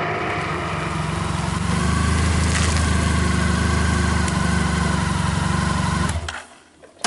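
Honda Crosstourer 1200's V4 engine running steadily, ticking over at idle, then switched off about six seconds in, the sound cutting out abruptly with a few faint clicks after.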